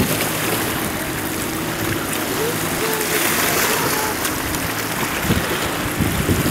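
Seaside ambience: steady wind noise on the microphone over washing sea water, with a faint low hum of distant boat engines; the wind rumbles in gusts near the end.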